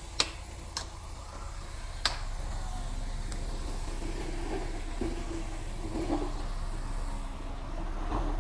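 Mitsubishi bulldozer's diesel engine running low and steady, with three sharp clicks in the first two seconds.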